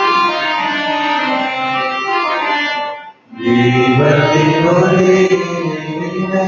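Instrumental church music playing the introduction to a hymn in held, sustained notes. It breaks off briefly about three seconds in, then starts again.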